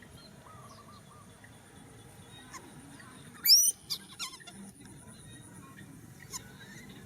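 A baby monkey gives a brief burst of shrill, high-pitched squeals about halfway through, over faint background chirps and clicks.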